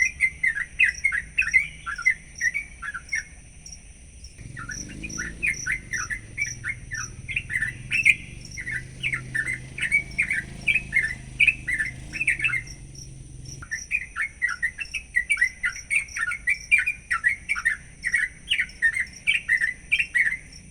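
Yellow-vented bulbul (curukcuk) singing a fast, continuous run of chattering notes, broken by two short pauses.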